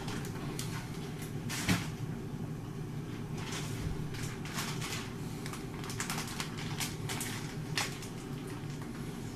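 Kitchen handling sounds: scattered light knocks, clicks and rustling over a steady low hum.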